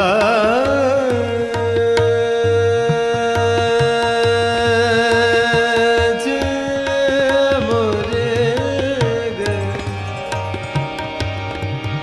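Hindustani classical vocal in Raag Jog with tabla accompaniment. A voice holds one long note for about six seconds, then moves through wavering, ornamented turns to a higher note, over a steady tabla rhythm.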